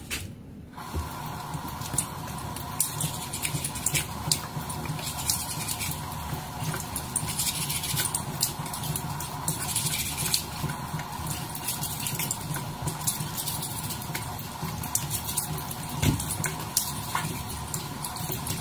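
Tap water running steadily into a bathroom sink, starting about a second in, with many small clicks and splashes.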